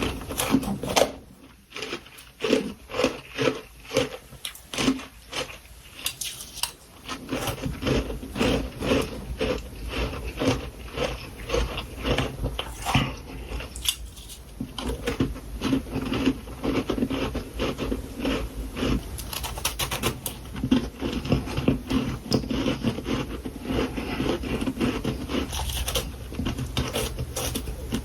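Close-up crunching and chewing of powdery freezer frost. Separate sharp bites come about twice a second at first, then give way to steady, continuous crunching from about seven seconds in.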